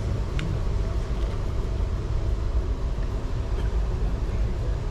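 Passenger train running along the track, a steady low rumble with faint clicks heard from inside the coach.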